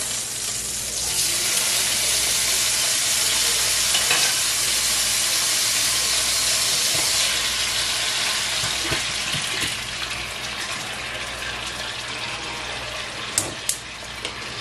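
Home-canned potato chunks sizzling as they go from a glass jar into hot oil in a cast-iron skillet. The sizzle swells about a second in and slowly eases over the last several seconds. Two short clicks near the end.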